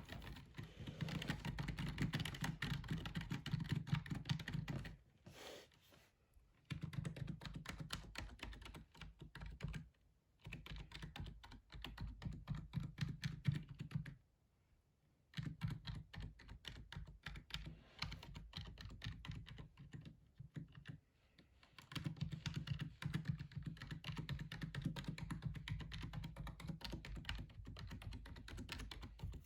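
Fast typing on a gaming keyboard: a dense, continuous patter of key strokes, broken four times by pauses of about a second.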